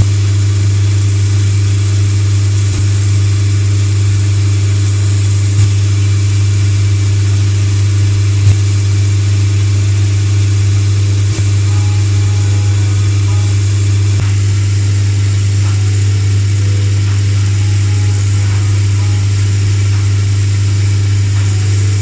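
Electric workshop machine motor running steadily with a strong low hum, a few faint clicks over it.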